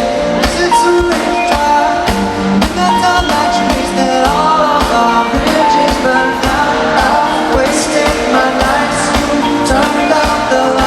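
A live pop-rock band playing loudly, with drum hits and held melodic notes, and some singing.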